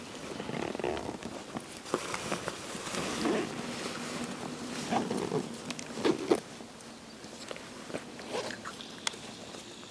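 A herd of camels at a desert water pool grunting and bellowing, with several calls between about three and six seconds in. Scattered sharp clicks and scuffs are heard as well.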